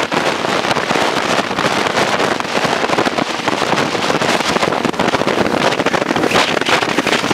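Wind buffeting the microphone over the rush and irregular slapping of choppy water against the hull of a fishing boat under way at speed.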